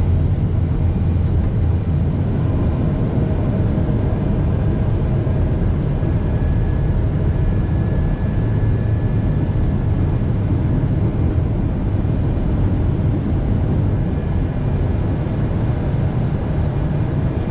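Steady cockpit noise of an airliner on approach with the landing gear down: a deep, even rumble of airflow and engines.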